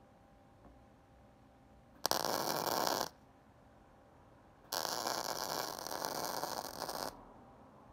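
Electric arc welder crackling and hissing as the electrode arcs on steel gears, in two runs: a short one of about a second, starting about two seconds in, then a longer one of about two and a half seconds.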